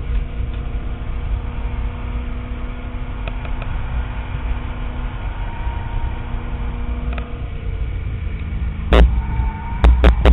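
2005 Corvette C6 Z51's 6.0-litre LS2 V8 heard from inside the cabin at a steady pitch, the tone shifting about eight seconds in, with several loud thumps near the end.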